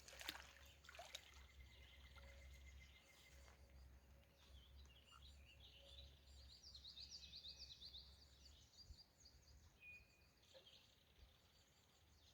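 Near silence with faint birdsong: a quick run of high chirping notes in the middle, over a quiet riverside background.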